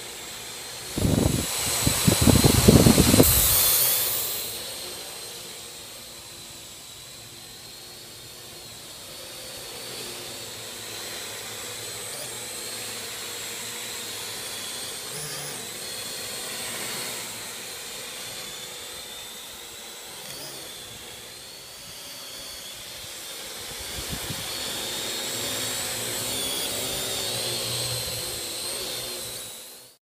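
Parrot AR.Drone 2.0 quadcopter's four brushless motors and propellers whining steadily as it hovers and flies around. About a second in, a loud rushing noise comes in for some three seconds.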